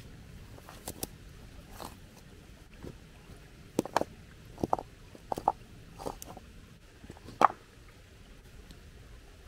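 Stones being picked up and set down on a rocky stream bank: a scattered series of knocks and scrapes, the loudest a sharp knock about three-quarters of the way through.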